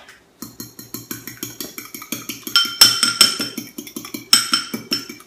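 A fork beating a raw egg in a small glass bowl: quick, even clinks of metal against glass, about six strokes a second, with the glass ringing after each. The strokes get louder about halfway through.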